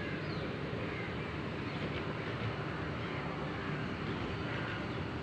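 Steady outdoor background noise: a low rumble with a few faint, short, high chirps over it.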